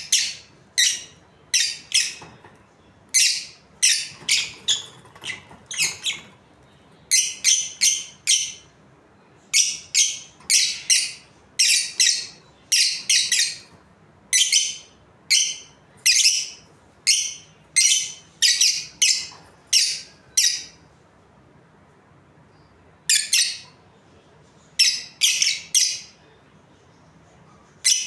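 Budgerigars chirping: short, sharp, high-pitched calls in quick runs of several, with a pause of a couple of seconds about three quarters of the way through.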